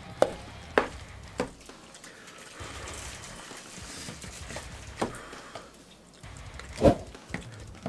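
Metal spoon clinking and scraping against a stainless steel mixing bowl as chicken pot pie filling is stirred and scooped: a few sharp clinks, the loudest near the end, with soft scraping between.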